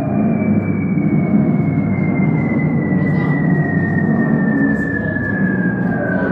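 Recorded Blitz sound effects: a deep, steady drone of bomber aircraft overhead, with one long whistle falling slowly in pitch, like a bomb dropping.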